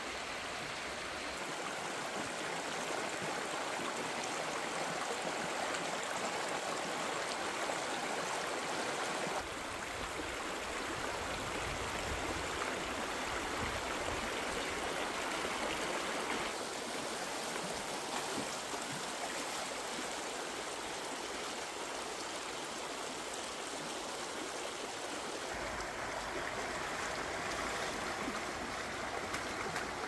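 Shallow stream rushing over rocks, a steady, even rush of water whose tone changes abruptly three times.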